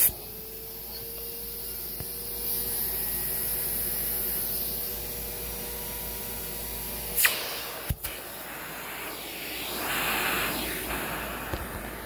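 Beam 2900 central vacuum's twin two-stage motors running with the hose end sealed against a suction gauge: a steady hiss with a faint whine. A couple of sharp clicks come about seven and eight seconds in, after which the rushing air sound swells.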